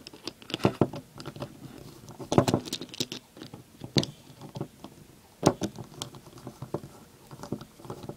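Irregular small clicks, taps and scrapes of a screwdriver working a flathead screw on a weed trimmer carburetor and of small metal carburetor parts being handled.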